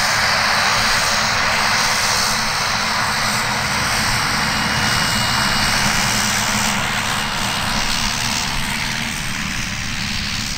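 Eurocopter EC120B Colibri helicopter running: a loud, steady rush of turboshaft engine and rotor noise, easing slightly near the end.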